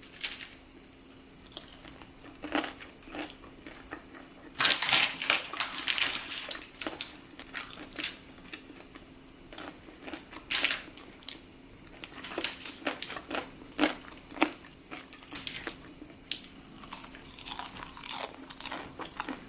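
Crispy roasted potatoes crunching as they are bitten and chewed: irregular sharp crackles, densest about five seconds in.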